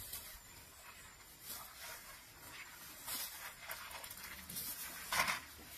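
Faint rustling and swishing of tall grass as an Asian elephant walks through it, trunk brushing the grass, with a few soft swishes, the loudest about five seconds in.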